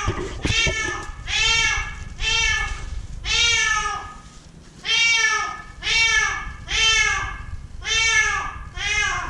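Black-and-white cat trapped down a deep light well, meowing loudly and repeatedly, about once a second, each meow rising and then falling in pitch. There is a short break a little before halfway.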